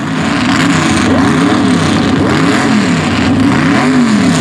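Mud race buggy engines being revved at the starting line, the pitch climbing and dropping again and again, about once a second.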